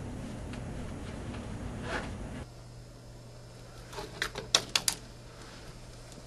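A steady low hum of room noise cuts off about two and a half seconds in. About four seconds in comes a quick run of sharp clacks: clothes hangers knocking against a closet rod as a shirt is pulled off it.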